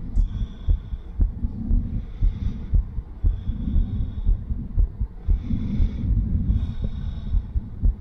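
Heart sounds through a digital stethoscope on the chest just after light exercise: a fast heartbeat of about two beats a second. A continuous whooshing murmur of turbulent blood flow partly blurs the separate beats, the murmur of a stiff left ventricle with diastolic dysfunction, perhaps with some valve regurgitation.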